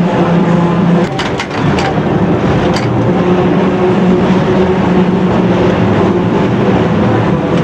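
Electric Lisbon tram running on its rails, heard from the driver's cab: a steady motor hum with wheel and rail noise. The hum drops away briefly about a second in and then picks up again, and a few sharp clicks from the wheels on the track come between one and three seconds in.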